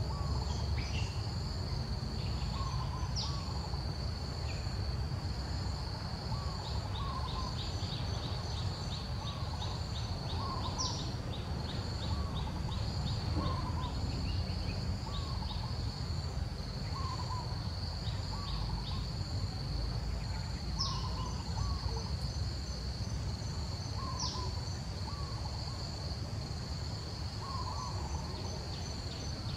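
Outdoor insect chorus, a steady high-pitched drone, with a short low two-note call repeating every couple of seconds. There is also a brief run of rapid ticking in the first half and a low rumble underneath.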